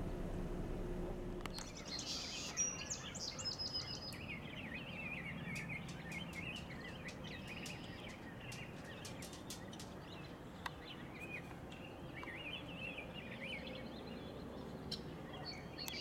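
Small songbirds chirping and twittering in quick, varied notes, with scattered light clicks. Under the first second and a half runs a steady low hum that stops when the chirping begins.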